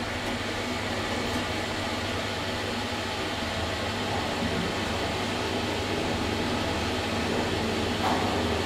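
Steady hum and whirr inside an SMW traction elevator car as it travels between floors, the drive and car ventilation running with no distinct clunks or chimes.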